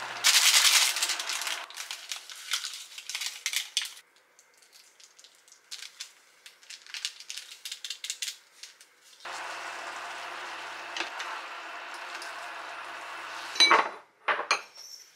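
Instant noodles cooking in a small saucepan: a hiss and steady sizzle with scattered clicks of chopsticks against the pan as the noodles are stirred and seasoned. Near the end, two ceramic bowls are set down on a counter with sharp clinks.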